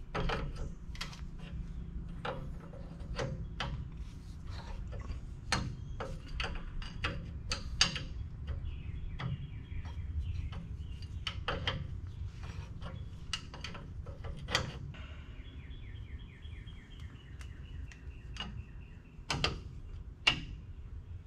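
Adjustable wrench clicking and clinking against the bolt and retainer of a truck's front brake caliper as it is tightened: irregular sharp metal clicks, with a run of fast ticking for a few seconds about three quarters of the way through, over a steady low hum.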